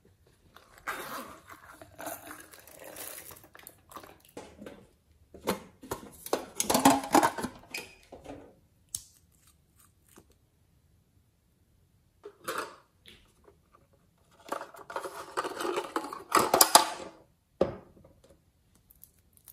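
Hands handling small plastic containers and a nail polish bottle: bursts of clicking, scraping and crinkling, in four clusters, as caps and lids are worked open.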